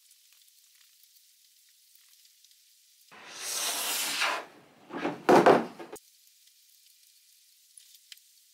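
A surfboard being turned over on a tabletop. About three seconds in there is a second-long rushing scrape as the board slides and lifts. It is followed a second later by two or three heavy knocks as it is set back down on the table.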